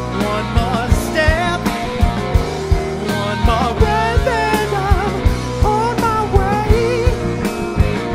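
Rock band playing live: a male voice singing over electric guitars, bass and a steady drum beat.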